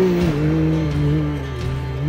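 Can-Am Maverick R's turbocharged three-cylinder engine held at high revs under load on a steep rock climb, its pitch wavering up and down as the throttle is worked and dipping briefly near the end.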